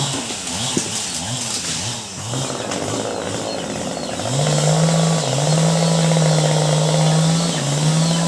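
Two-stroke chainsaw engine: its pitch rises and falls with the throttle for the first couple of seconds, then from about halfway it is held at high revs, steady apart from two brief dips.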